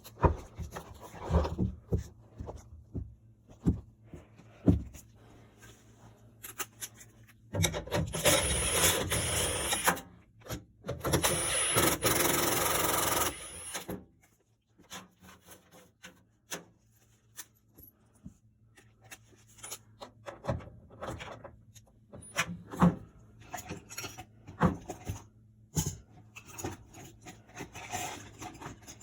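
Hand work with tools and metal parts: scattered clicks, knocks and scraping, with two loud hissing stretches of two to three seconds each near the middle.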